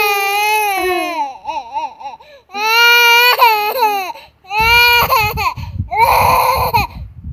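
A young child crying in long, high-pitched wails, three drawn-out bouts with softer whimpers between the first two and a short break before the last.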